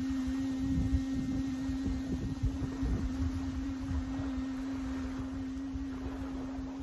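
A woman humming one long, steady note with her mouth closed, with wind rumbling on the microphone.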